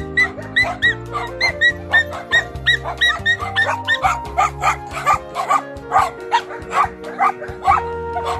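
Dogs barking over and over in quick succession, about three barks a second, over background music with steady held notes. The barking stops near the end.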